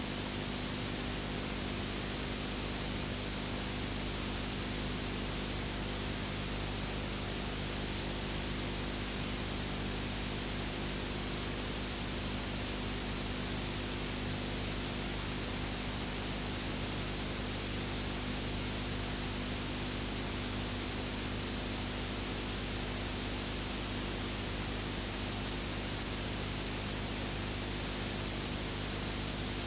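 Steady hiss with a low electrical hum: the noise floor of an old film transfer with no soundtrack. Nothing from the trains on screen is heard.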